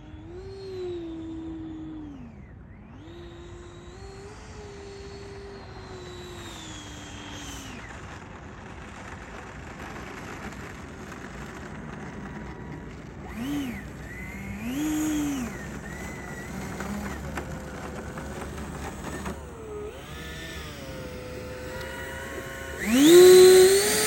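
The 90 mm Wemotec electric ducted fan of an RC L-39 Albatros jet whines as the throttle is worked up and down, with long sweeps in pitch, then a couple of short blips. Near the end it spools up sharply to its loudest, steady high whine. Wind rumbles underneath.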